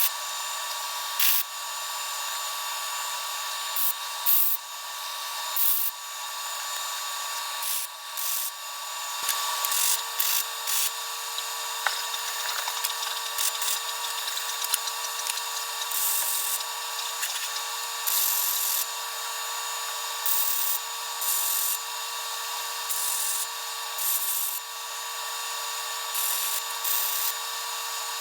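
Angle grinder with a thin cut-off (zip) disc running at a steady whine and cutting steel, with repeated short bursts of harsh hiss as the disc bites into the metal.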